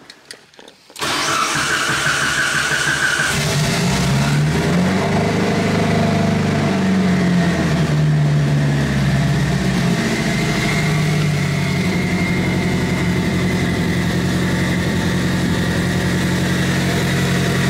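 Mitsubishi Lancer Evolution VIII's turbocharged 4G63 inline-four started: the starter cranks from about a second in, the engine catches after about two seconds, the revs rise and fall back, and it settles into a steady idle.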